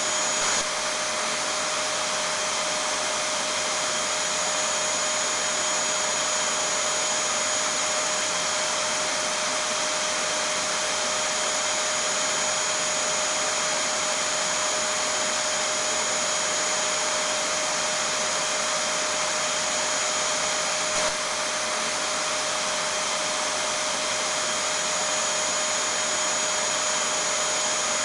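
Vacuum cleaner running steadily at constant speed, a loud, even motor hiss with a fixed high whine.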